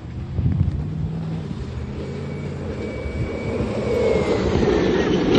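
Two-door Jeep Wrangler's engine running as it drives over the sand dunes, growing louder as it comes closer.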